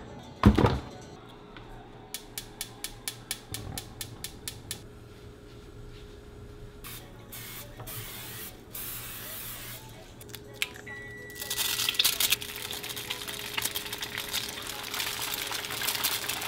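A knock near the start, then a run of sharp clicks about three a second, typical of a gas stove's igniter. Next, cooking spray hisses onto a pan for a couple of seconds, and from about halfway on, eggs sizzle in the hot pan, over quiet background music.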